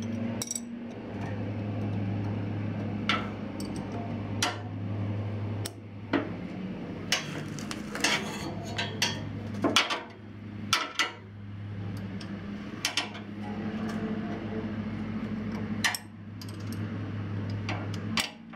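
Metal wrenches clinking and clicking against the oil drain plug and fitting as the plug is tightened, in irregular sharp clicks over a steady low hum.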